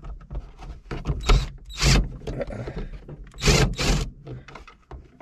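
Hands working at a car's plastic overhead map-light housing: a scatter of small clicks and a few short scraping rustles, the loudest about two seconds in and a pair around three and a half seconds in.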